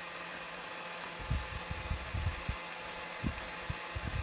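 Electric heat gun running with a steady fan hiss. Soft, irregular low bumps come from hands handling the foam petal.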